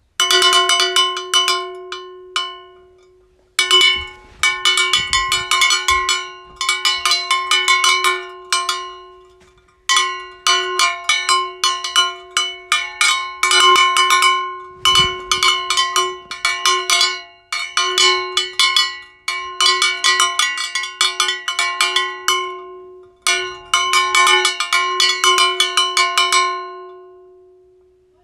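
A bell-like metallic sound effect struck over and over in fast rhythmic runs, each strike ringing with bright overtones over a steady low hum. The runs stop briefly a few times and then start again.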